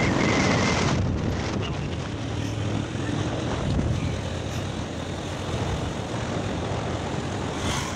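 Two-wheeler engine running steadily while riding, mixed with wind buffeting the microphone. It gets a little quieter about a second in.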